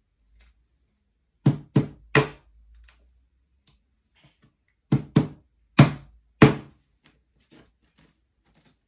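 Sharp knocks of a track pin being tapped into a model railway baseboard: three quick taps, a pause, then four more.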